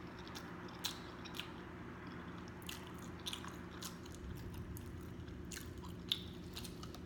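Close-up chewing of food, with sharp, irregular crunches.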